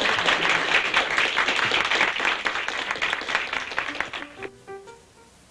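Studio audience applauding, dying away over about four seconds, with music beneath it that ends in a few short separate notes.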